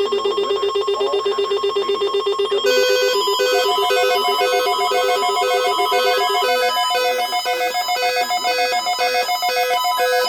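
Several weather alert radios, among them a WR400, sounding their alert tones at once, set off by an unrecognized emergency alert message. A fast-pulsing tone runs for about six seconds; from about three seconds in, a second radio joins with a regular on-off beep and a third with a held tone, so the alarms overlap.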